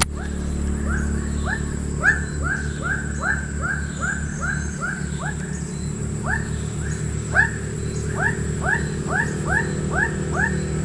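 Rapidly repeated animal calls, about three a second, pausing briefly near the middle, over a steady low engine hum.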